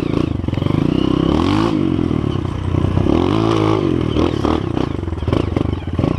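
Honda CRF230 trail bike's single-cylinder four-stroke engine running under way, its revs rising and falling twice with the throttle.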